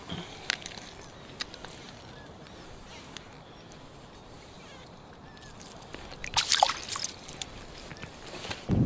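Quiet open air on the ice with a few light clicks, then a short burst of crunching, crackling sounds about six and a half seconds in, like ice slush being disturbed at the edge of the fishing hole. Wind buffeting the microphone comes in suddenly at the very end.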